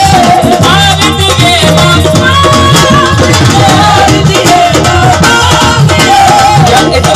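Loud live devotional bhajan music over a PA: a wavering melody line, sung or played, over steady, busy hand percussion.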